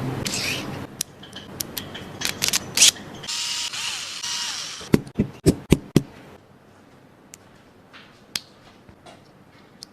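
Small mechanical workshop sounds: short whirring stretches and scattered sharp clicks, then a quick run of five loud clicks within about a second, after which only a few faint ticks remain.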